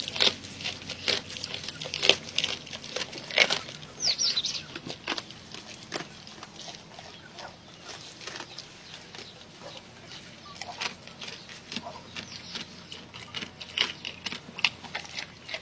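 A goat chewing raw fish close to the microphone: irregular wet crunching and smacking clicks, loudest in the first few seconds and softer later.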